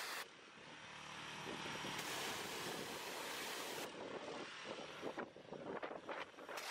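Pressure washer jet spraying concrete retaining-wall blocks, a steady hiss that stops twice as the trigger is let go: from just after the start to about two seconds in, and again from about four seconds in. Scattered knocks come during the second pause.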